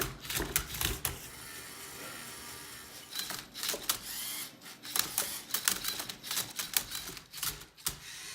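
LEGO EV3 MindCub3r robot working a Rubik's cube: its motors whir and its plastic parts click and clack as the scan arm and basket move. There is a steadier run of motor sound about a second in, and clicks come thick and fast elsewhere.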